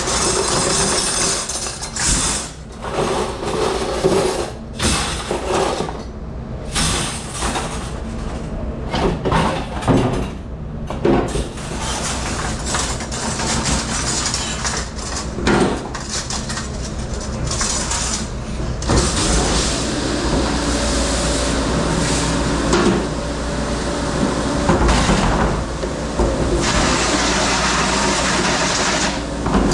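Commercial dish room at work: dishes and trays clattering and knocking over a steady hiss of spraying water and the hum of dishwashing machinery.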